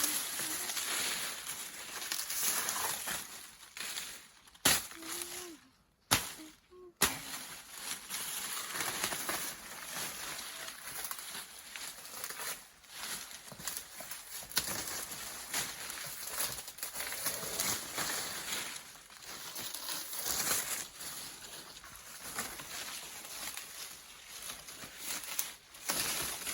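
Crunching and rustling of dry plantain leaves as branches are cut and pulled away, irregular and crackly over a steady high hiss, with two brief gaps about six seconds in.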